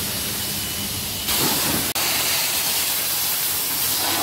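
High-pressure car-wash wand spraying water: a steady hiss that becomes louder and brighter just over a second in, broken by a momentary dropout just before two seconds.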